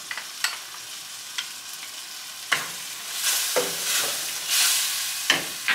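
Crushed tomatoes and butter sizzling in a wok while a wooden spoon stirs them, with a few sharp knocks of the spoon against the pan. The sizzle grows louder about halfway through, as the stirring picks up.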